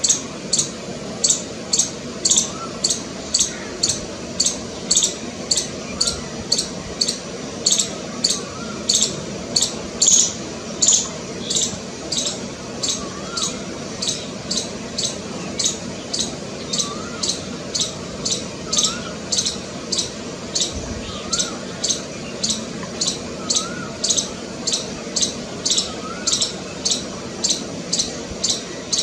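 A squirrel giving its repeated alarm call: short, sharp, high chirps at a steady rhythm of about three every two seconds, the call of a frightened squirrel.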